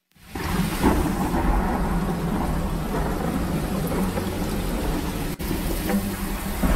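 A dense, low rumbling noise that starts suddenly and runs on steadily, with a faint steady hum underneath.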